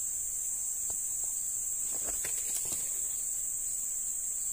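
Steady high-pitched drone of insects, with a few faint clicks about two seconds in.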